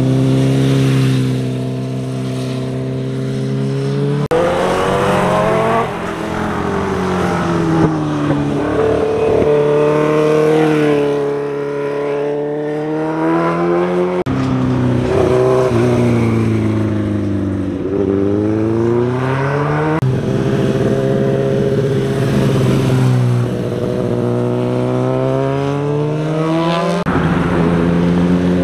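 Motorcycle engines taking a hairpin bend, one pass after another: each engine's pitch falls as the rider rolls off into the curve and rises again as he accelerates out.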